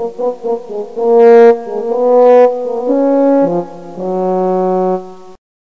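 Short intro music jingle: a few quick notes, then longer held notes, cutting off abruptly about five seconds in.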